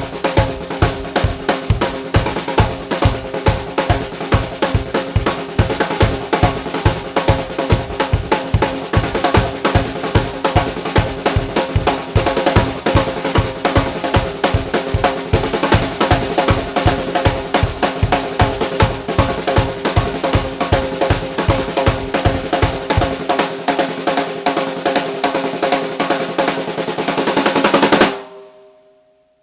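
Ether Drums custom 14" x 5.5" rock maple snare drum, undampened, with a Remo Controlled Sound batter head, played in fast, busy patterns over a steady kick drum. Near the end the kick drops out and the snare builds into a loud roll, then stops sharply and the drum rings out briefly.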